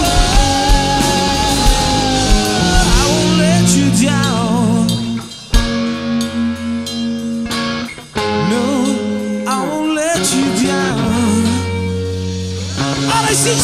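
A live rock band plays an instrumental passage with electric guitar lead lines, bending and wavering in pitch, over bass and drums. Twice the band briefly drops out and comes back in on a hit, about five and a half and eight seconds in.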